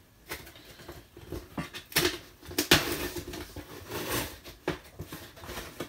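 Shipping packaging being handled and opened by hand: rustling, crinkling and small taps, with two sharper snaps about two seconds in and a little later.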